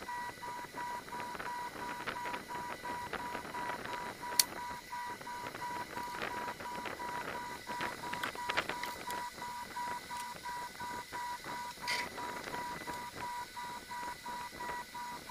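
Electronic tone beeping in quick even pulses, about three a second, with a sharp click about four seconds in.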